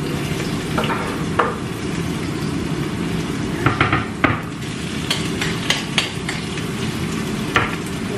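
A knife and a metal spoon knock and scrape on a wooden cutting board as chopped tomatoes are pushed off it into a steel pot, making a scattered series of short sharp clicks. Underneath runs a steady hiss, like a pot on the hob steaming.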